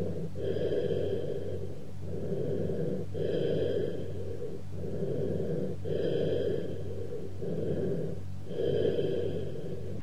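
Cavernous breath sounds heard over the chest through a stethoscope: low-pitched, hollow bronchial breathing, the sign of an underlying lung cavity with irregular walls or an open pneumothorax. About four breaths, each an inspiration and an expiration as long or longer, with a short pause between them, over a steady low hum.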